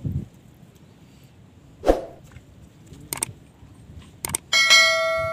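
Subscribe-button sound effect: a soft thump about two seconds in, two pairs of mouse clicks, then a notification bell chime that rings out bright and slowly fades near the end.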